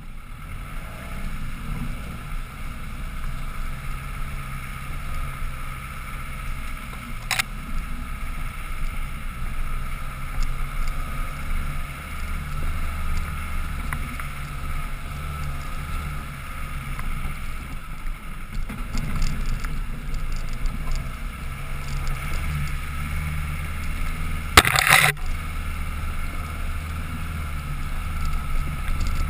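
Land Rover Defender 110 engine running steadily at low revs on an uphill off-road climb, heard from the roof with wind on the microphone. There is a sharp knock about seven seconds in and a louder one near the end.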